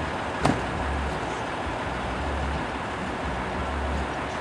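Semi-truck car hauler's diesel engine idling, with a low hum that swells and fades about once a second, and a single sharp clack about half a second in.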